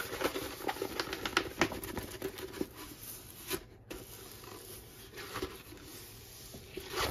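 A pour-glue diamond painting canvas with its plastic cover film, crinkling and crackling as it is rolled up by hand to work out the wrinkles. It makes a quick run of small clicks and rustles that thins out after about three seconds.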